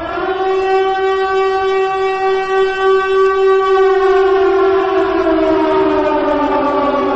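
Air-raid siren wailing: one long, loud tone that holds steady, then slowly drops in pitch from about halfway through.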